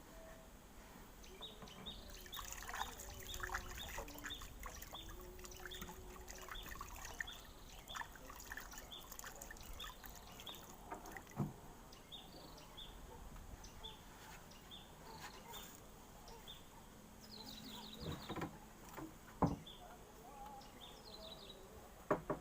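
Faint outdoor ambience at the water's edge: a small high chirp repeating two to three times a second, light water trickling, and a few sharp knocks near the end.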